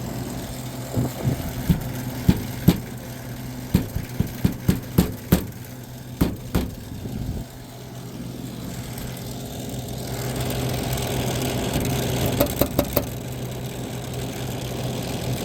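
A 1978 Gibson Air Sweep window air conditioner running, with a steady hum from its Tecumseh AE reciprocating compressor and the whir of a condenser fan that the owner says rubs against its shroud and needs balancing. Irregular sharp clicks and knocks come through the first half and again briefly near the end.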